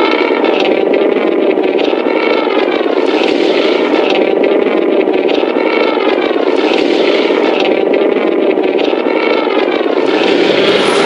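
Godzilla sound effect from the 2014 film: one long, loud, rasping roar-like call whose pitch wavers up and down slowly over a dense growling core, lasting about twelve seconds without a break.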